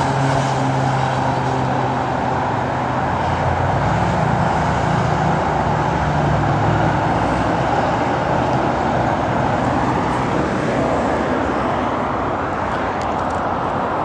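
Steady freeway traffic noise, with a lower engine hum that swells about four seconds in and fades out a few seconds later.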